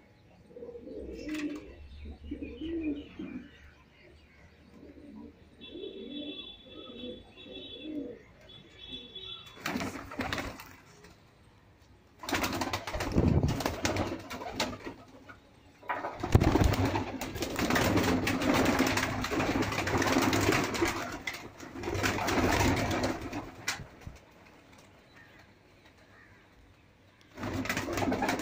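Domestic pigeons cooing in their loft, repeated low phrases. Then long stretches of loud rustling and flapping as the birds are let out of the loft.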